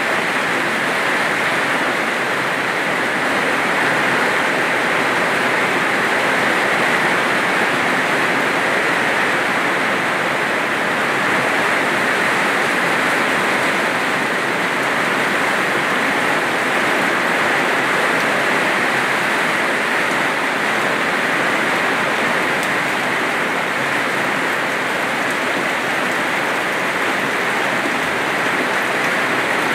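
Steady rain falling: an even hiss of a heavy shower, the first rain after a two-month drought.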